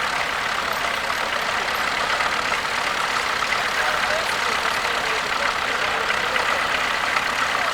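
A tractor engine running steadily at an even speed.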